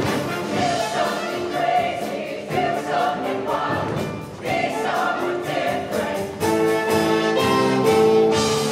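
SATB show choir singing in multi-part harmony over band accompaniment with a steady beat, swelling into a loud held chord in the last couple of seconds.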